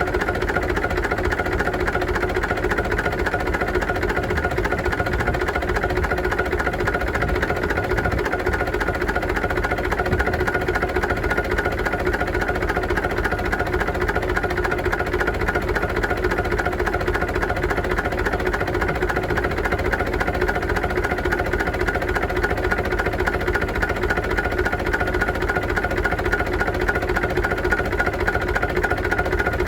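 UTB U650 tractor's diesel engine running steadily at an even speed.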